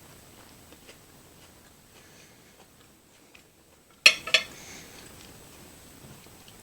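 Cutlery clinking against a plate: faint scattered ticks, then two sharp, loud clinks in quick succession about four seconds in.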